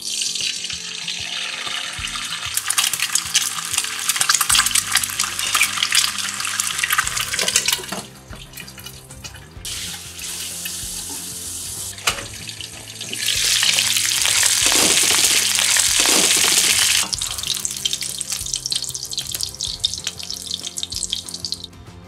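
Eggs frying in hot oil in a frying pan: a loud, crackling sizzle that starts suddenly as they go in. It eases off about eight seconds in, then surges loudly again for a few seconds in the middle before settling back.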